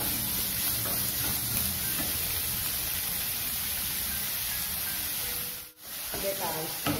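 Chopped onion, green chilli, ginger and garlic sizzling in oil in a nonstick pan, with a plastic spatula scraping and stirring against the pan. The sound drops out briefly near the end.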